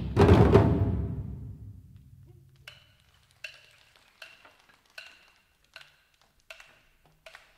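Taiko drum ensemble: a loud drum stroke at the start rings and dies away over about two seconds. Then come light, sharp clicks with a slight ring, evenly spaced about every three-quarters of a second, seven in all, keeping the beat.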